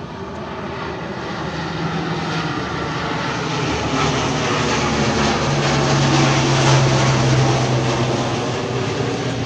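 C-130 Hercules transport plane's four turboprop engines droning as it flies low overhead. The drone grows louder to a peak about two-thirds of the way through and then eases, its pitch dropping as the plane passes.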